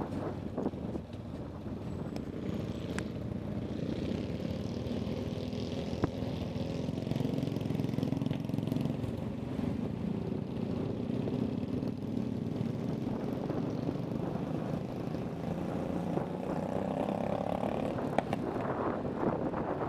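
Motorcycle engine running while riding, with wind noise on the microphone. The engine note climbs toward the end as the bike accelerates.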